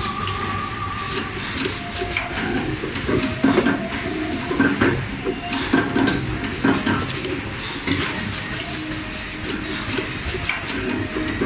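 Automatic wire cutting, stripping and tinning machine running: repeated irregular clacks and knocks of its pneumatic grippers and slides over a steady mechanical hum.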